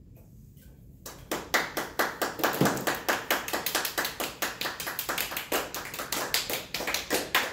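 A small group of people clapping, starting about a second in and keeping on steadily.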